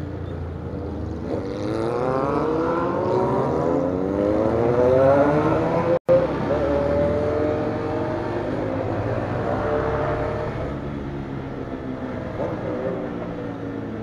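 Motorcycle engine heard from the rider's seat, rising steadily in pitch as it accelerates, then holding a steadier, slowly falling pitch as it cruises. The sound cuts out for an instant about six seconds in.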